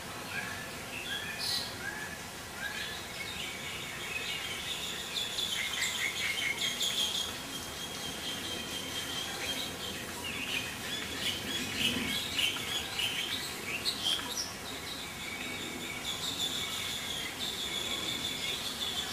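Small birds chirping and twittering steadily, with a short run of repeated whistled notes in the first few seconds; no crane call is heard.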